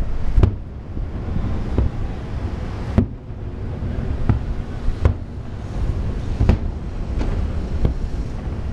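Aerial fireworks shells bursting in an irregular series of about ten sharp bangs, over a steady low rumble.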